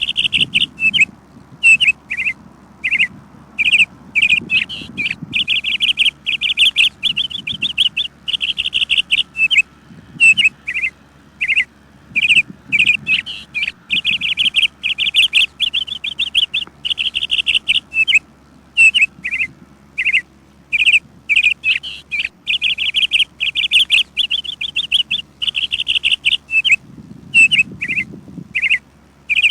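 Birds chirping continuously in fast, rattling bursts of repeated notes, each burst lasting about a second, with short single chirps between them.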